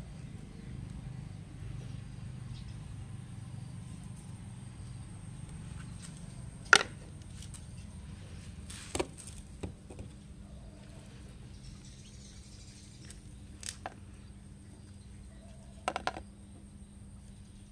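Handling noises from a stainless steel grinder cup and a plastic tray: a few separate sharp knocks and clicks over a low background rumble, the loudest about seven seconds in and a short cluster of clicks near the end as the metal cup is tipped against the tray to pour out the ground powder.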